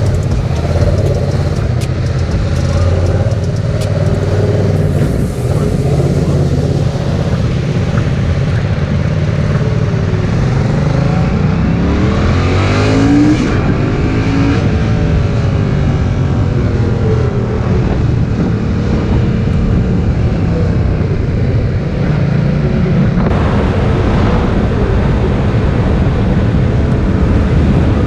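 Yamaha MT-07's 689 cc parallel-twin engine running under a rider on the road, with wind noise over the microphone. About ten seconds in, the revs climb sharply in a hard acceleration, then drop away again.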